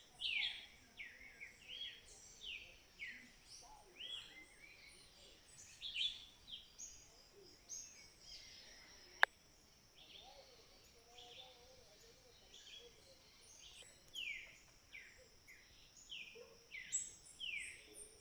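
Wild birds calling, with many short whistled notes that sweep downward, repeated again and again, over a steady high-pitched hum. A single sharp click sounds about nine seconds in.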